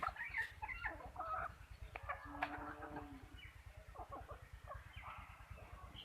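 Free-range chickens clucking, with many short overlapping calls and one longer, drawn-out call a little over two seconds in.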